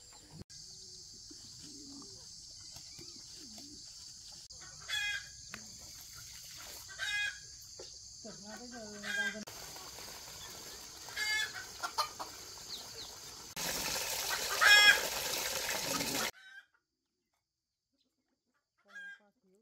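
Chickens clucking, with a handful of louder short calls about two seconds apart over a steady high-pitched background hiss. The sound cuts off abruptly about three seconds before the end, leaving near silence with one faint call.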